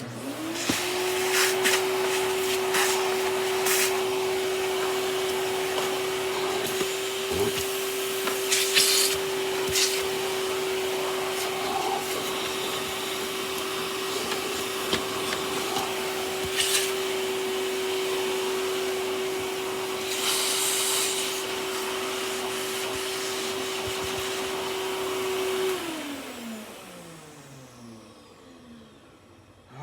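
Upright vacuum cleaner switched on and running with a steady whine, with a few clicks and rustles from handling. It is switched off about 26 seconds in, and the motor winds down with a falling pitch.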